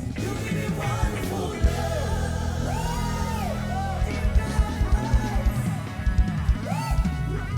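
Live band playing reggae-style gospel music, with singing over guitar, bass and a steady beat.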